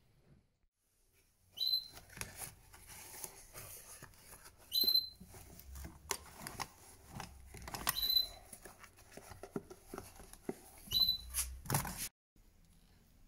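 Hands handling a pair of leather shoes on a workbench: knocks, taps and rustling, with a short high squeak four times, about every three seconds. The sound cuts off suddenly near the end.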